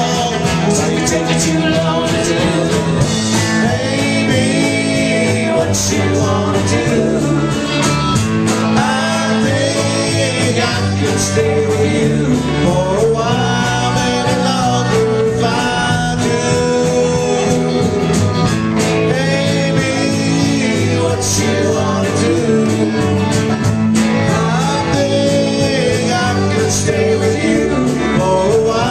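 Live band playing a song with acoustic and electric guitars, a drum kit and singing.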